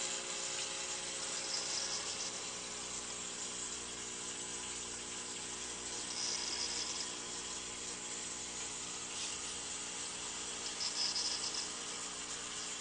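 Water streaming steadily from small return tubes into an aquaponics grow bed, a continuous splashing trickle over a low, steady hum.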